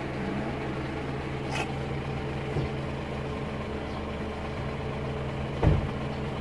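Steady low hum of an idling engine, with a short click about a second and a half in and a low thump near the end.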